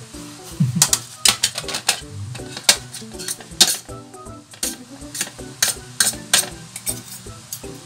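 Metal forks clinking and scraping against a plate as a heap of saucy stir-fried instant noodles is tossed and twirled: an irregular run of sharp clinks, some in quick pairs.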